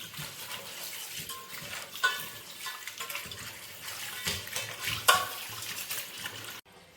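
Running water splashing, with two sharp clatters about two and five seconds in; the sound cuts off abruptly just before the end.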